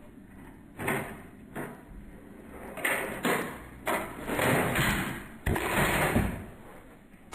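Plastic Nerf foam-dart blaster being handled and worked: a series of short sliding rattles and clacks, with a sharp click about five and a half seconds in.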